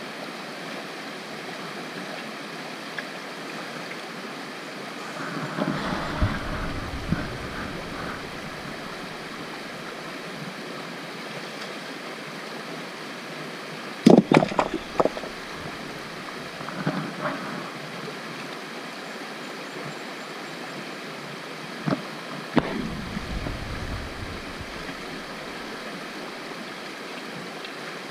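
Steady rush of a creek running over stones, broken several times by rocks being lifted out of a dig hole and tossed onto the stony bank. The loudest is a quick clatter of stone on stone about halfway through.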